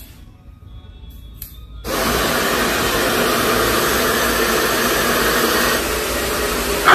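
Electric hair dryer switched on about two seconds in, then blowing steadily at full power.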